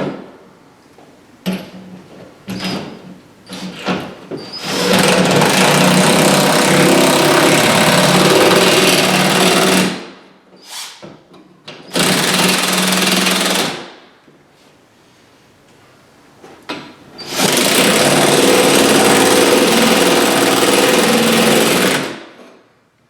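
Power driver with a socket driving the wall mount's screws into a wall stud, run in three long bursts of several seconds each, with knocks and clicks between them as the socket is set on the screw heads.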